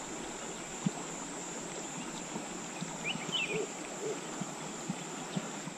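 Jungle riverside ambience: a steady hiss of water and air under a constant high-pitched insect whine, with a short bird chirp about three seconds in and a few faint ticks.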